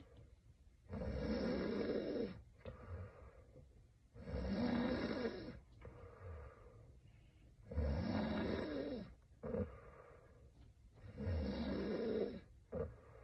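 A sleeping young woman snoring in a steady rhythm: four loud snores, each about a second and a half long and about three and a half seconds apart, with softer breaths between them.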